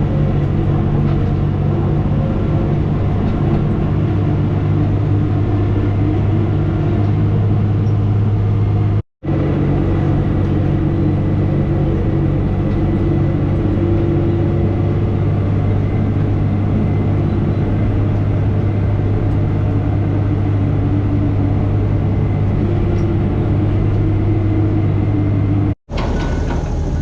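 Diesel engine of heavy earthmoving equipment running steadily and loudly, heard close up as a constant low drone. The sound cuts out abruptly twice, for a split second each time.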